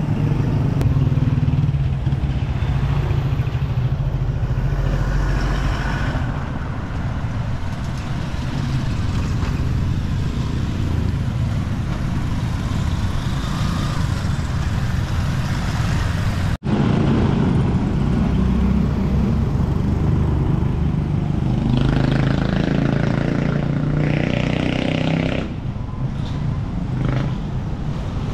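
Street traffic dominated by small motorcycle engines: a motorcycle tricycle runs close by at the start, and more motorcycle engines pass later on. The sound cuts out for a split second just past halfway.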